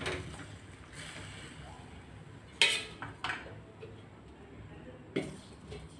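Steel spoon and steel lid clinking against a steel cooking pan as a curry is stirred and the pan is covered: a few sharp metallic clinks, the loudest with a brief ring a little before halfway.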